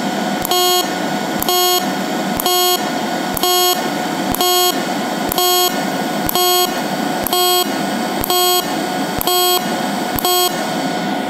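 TIG welding arc on an HTP Independence 210 AC/DC switching on and off automatically in stitch (spot) mode for an autogenous seam: a short buzzing burst about once a second, each lasting about a third of a second and starting with a click, over a steady hiss. The pulsing stops near the end.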